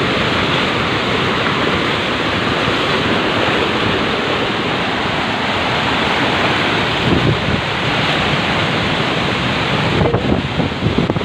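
Muddy floodwater rushing fast and turbulent over and past concrete, a loud steady wash of water noise from a waterfall stream in spate. Near the end, gusts of wind buffet the microphone in uneven thumps.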